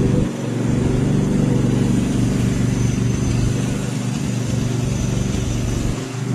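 Stiga Estate 9122 4x4 lawn tractor's engine running steadily, with brief dips in level just after the start and again near the end.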